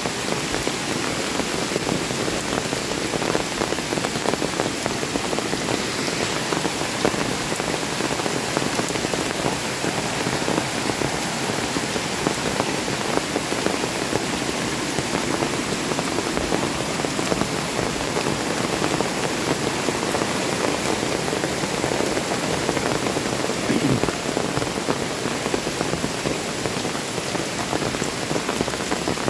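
Heavy rain falling steadily on leaves and wet ground: a dense, even hiss full of tiny drop ticks.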